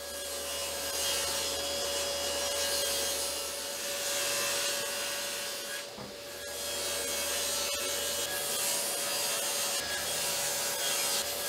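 Table saw ripping 3/4 inch Baltic birch plywood: the hiss of the blade cutting through the sheet over a steady whine from the spinning saw. The sound dips briefly about halfway through, then the cutting goes on.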